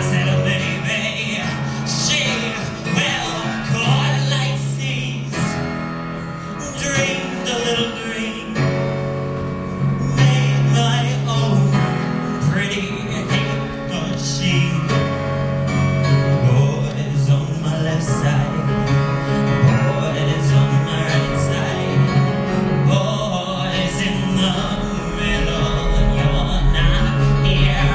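Live music: a singer performing a song with instrumental accompaniment, the voice held on long, wavering notes.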